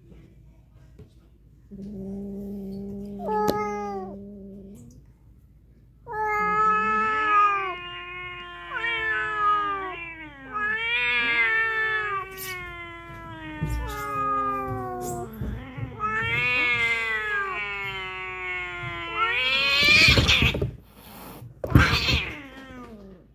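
Domestic cats in a territorial standoff. A low steady growl gives way about six seconds in to long, wavering yowls that rise and fall almost without a break. Near the end come two short, loud, harsh outbursts.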